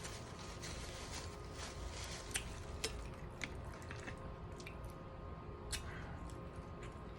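Close-up mouth sounds of eating: soft wet chewing and lip smacking, with a few sharper single smacks or clicks later on.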